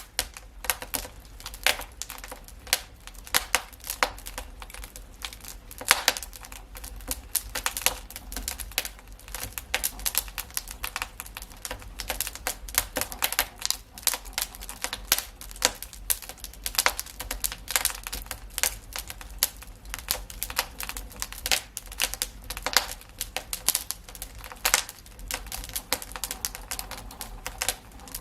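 Wood fire in a fireplace crackling: a steady stream of irregular sharp pops and snaps over a low, even rumble.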